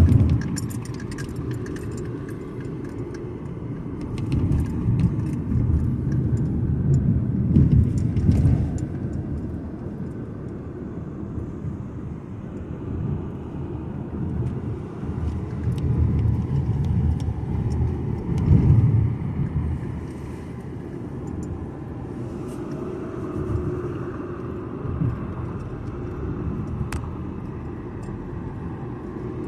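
Steady road and engine noise of a moving car heard from inside the cabin, a low rumble that swells and fades now and then.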